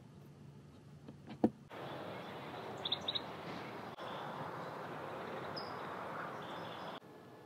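A few faint clicks from a heater thermostat dial being turned, then steady outdoor background noise with short bird chirps: two close together and one more a little later.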